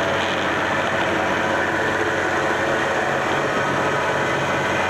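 Gas-engine plate compactor running steadily, its plate vibrating against a board laid over the pavers as it is walked forward to seat them in the sand bed.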